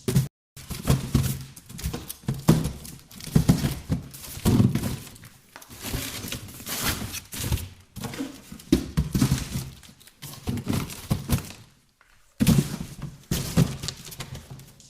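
Boxes being handled and shifted around: irregular dull thuds and knocks, with scraping and sliding between them.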